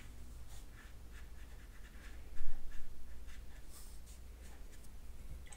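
Watercolour brush stroking over damp watercolour paper, a faint soft brushing, with a brief bump about two and a half seconds in.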